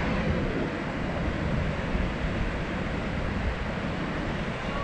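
Ocean surf washing and breaking on a sandy beach, a steady rushing noise, with wind rumbling on the microphone.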